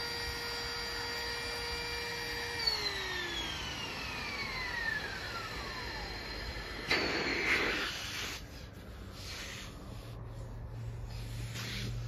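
Small electric air pump motor running with a steady whine, then winding down a little under three seconds in, its pitch falling away. About seven seconds in there is a short rush of noise lasting about a second, then scattered handling noises.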